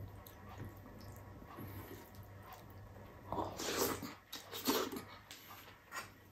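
Close-up mouth sounds of eating sinigang by hand: soft chewing and smacking, then two loud slurps as food is sucked off the fingers, a little past halfway.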